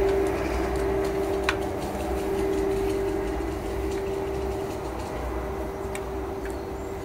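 Bicycle wheel spinning freely in the frame, a steady pulsing whir with a low rumble and a few faint ticks, slowly dying away as the wheel loses speed.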